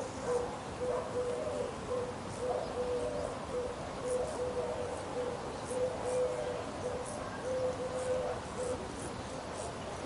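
Short hooting calls on one low pitch, repeating about twice a second, with a few slightly higher notes mixed in, over a steady rural background hiss with faint high chirps.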